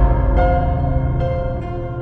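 Instrumental background music: held notes over a deep bass note that fades through the first second.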